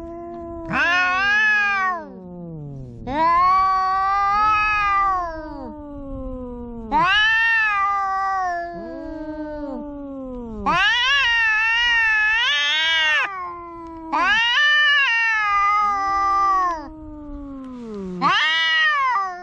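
A cat yowling loudly over and over: six long, drawn-out calls, each rising and then falling in pitch, with quieter, lower cries between them.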